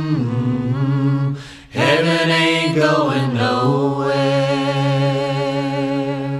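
The end of a song: a singer's voice holding long notes with vibrato, with a short break about one and a half seconds in, then a last held note that fades out at the end.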